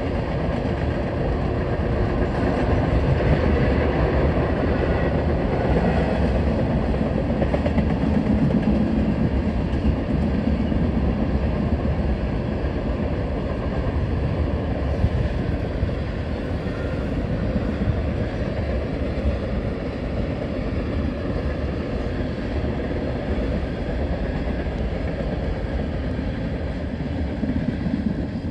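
Union Pacific freight train of tank cars rolling past, its steel wheels making a steady rumble on the rails.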